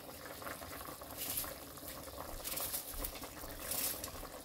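Pot of chicken gravy boiling on the stove, a steady bubbling, with a few brief papery crackles as a raw onion is peeled over the pot.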